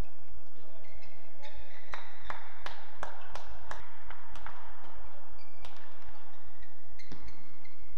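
Badminton rally: the shuttlecock is hit back and forth with rackets in a quick run of about eight sharp hits, some two or three a second, in the middle, then a couple more near the end. Short squeaks come from the players' shoes on the court surface.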